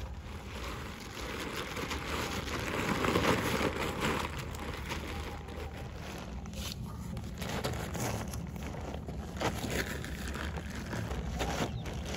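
Nylon tent fabric rustling and crinkling as it is folded and handled, in irregular scratchy bursts that are loudest about three seconds in.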